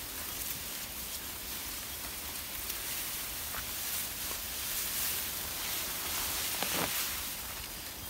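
Steady hiss of a river's rushing water, a little louder through the middle, with a few footsteps, the plainest near the end.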